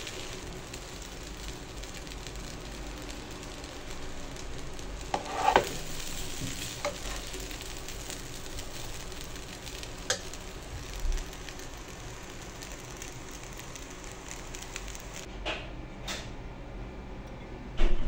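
Fried rice sizzling in a pan as it is stirred and turned with a metal spoon, a steady frying hiss with a few sharper scrapes and clinks of the spoon against the pan. A louder knock comes at the very end.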